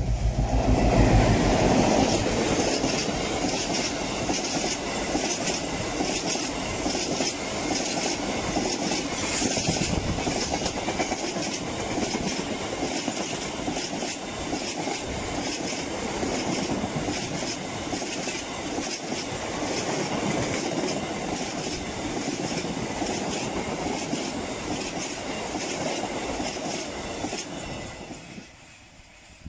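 Class 60 diesel locomotive passing close by, loudest in the first couple of seconds. It is followed by a long rake of bogie tank wagons whose wheels clatter past in a steady, evenly repeating rhythm, fading away near the end as the last wagon goes by.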